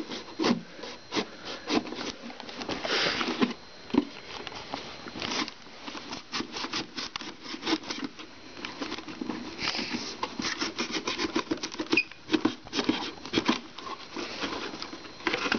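Pocket knife sawing through a corrugated cardboard box: irregular rasping and scraping strokes, with many small clicks and knocks as the box is gripped and handled.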